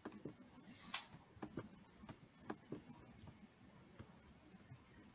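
Faint, irregularly spaced clicks and light taps, about a dozen, from a hand working at a computer and webcam in a quiet room.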